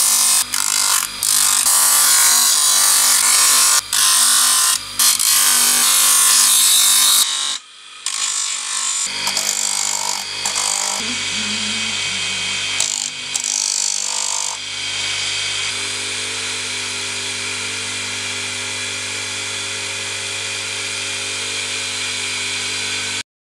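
An electric disc sander grinds a wooden machete sheath with a loud rasping hiss, broken by a few short gaps. After about seven seconds it gives way to a quieter, steady hum that cuts off suddenly near the end.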